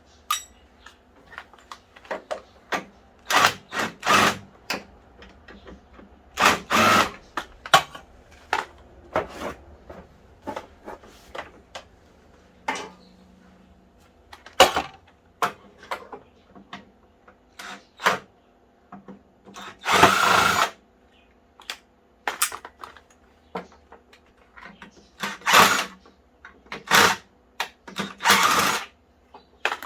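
Cordless drill run in short bursts of about half a second to a second, backing screws out of an exercise bike's frame, with metal parts and tools clinking and knocking between the bursts.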